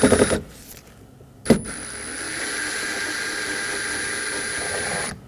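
Cordless power screwdriver running as it drives the door panel's Phillips screws in: a short run that stops just after the start, then a click and a longer steady run with a thin high whine that cuts off near the end.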